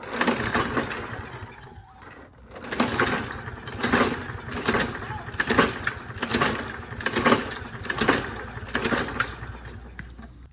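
Toro Recycler push mower being pull-started again and again, about eight pulls, coming roughly once a second in the second half: the recoil rope zips out and the engine turns over but never catches, because the spark plug cap is off so there is no spark.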